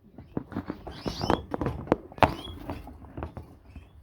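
Small cage finches moving about a wire cage: irregular taps and scrabbling of feet and wings on perches and bars, with a few short high chirps.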